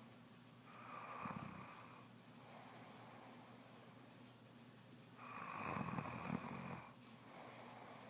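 A pregnant woman snoring in her sleep, a snore that came on soon after she became pregnant. There are two loud rasping snores about four seconds apart, each lasting over a second, with quieter breaths between.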